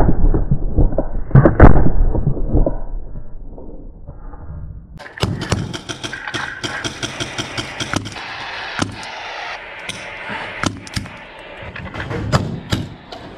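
Paintball markers firing during play: two heavy, muffled thumps in the first two seconds, then, after a sudden change in the sound about five seconds in, a run of sharp, irregular pops.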